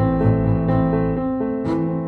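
Background music: a piano-style keyboard melody of sustained notes that change every fraction of a second.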